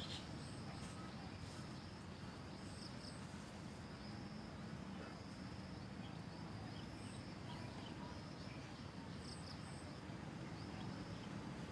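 Steady high-pitched insect drone over a low outdoor rumble, with a few brief high chirps scattered through.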